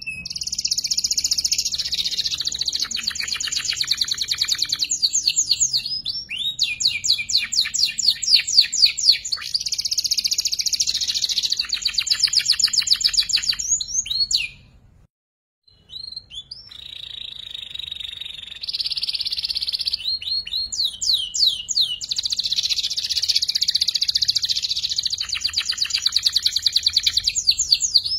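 A juvenile domestic canary singing, practising its rolling trills: long runs of fast repeated notes and buzzy rolls, high-pitched and continuous, broken once by about a second of silence near the middle before the song carries on.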